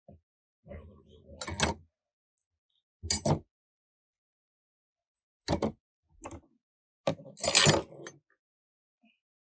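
Metal internal parts of a BTR four-speed automatic transmission clanking and clattering as they are pulled out and set down, in about five separate bursts, the longest and loudest near the end.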